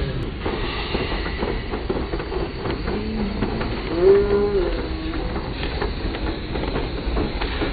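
5-inch gauge miniature steam locomotive running along the track, with a steady rumble and scattered clicks of wheels on rail. About four seconds in, a brief low tone rises and falls, the loudest moment.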